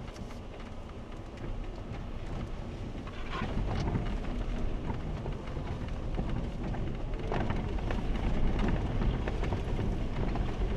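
Jeep crawling over a rough, rutted dirt trail, heard from inside the cabin: a steady low rumble of engine and tyres with scattered knocks and rattles from the body, getting louder about three to four seconds in.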